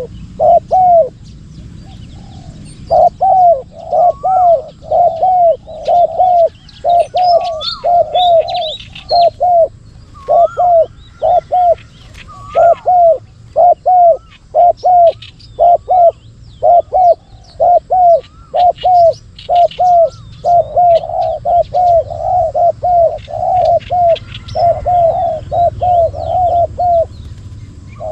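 Spotted doves cooing: loud, short, repeated coos in quick runs with brief pauses, over faint high chirps of other small birds.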